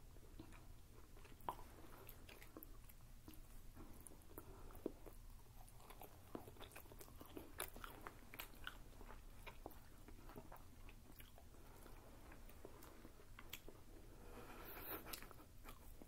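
Faint chewing and wet mouth clicks and smacks of people eating pişmaniye, the soft stringy Turkish cotton candy, with many short scattered clicks.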